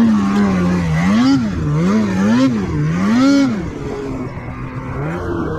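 Snowmobile engine revving up and down with the throttle, its pitch rising and falling four times in quick succession, then dropping back to a quieter, lower run about three and a half seconds in.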